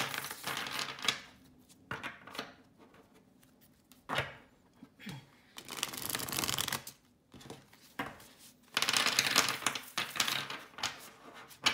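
A deck of Illuminated Earth Oracle cards being riffle-shuffled by hand. There are several bursts of the cards flicking and rattling as they interleave, with short pauses between.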